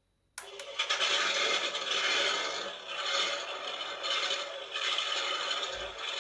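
Small speaker in the Eaglemoss Ecto-1 scale model, newly wired to its circuit board, switching on suddenly with a loud, rough hiss that swells and dips. This is the locomotive-like noise the builder complains of.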